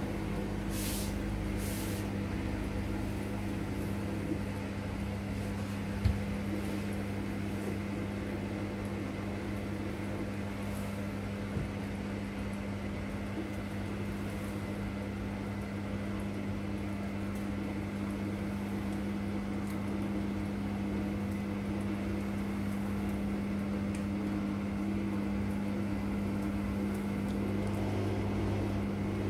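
Steady motor hum of a CATLINK self-cleaning litter box as its globe-shaped drum slowly rotates. One sharp click comes about six seconds in, with a few faint ticks.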